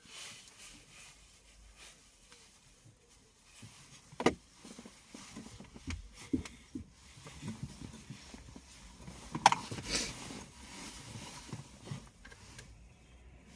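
Intermittent handling noises from working with wires and tools: light clicks and rustles, with two sharper knocks about four and nine and a half seconds in.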